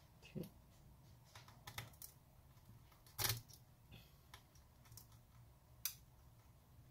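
Faint, scattered clicks and taps of a Torx T8 screwdriver and small hinge screws being worked and handled. The loudest is a short clatter about three seconds in, with a sharp tick near six seconds.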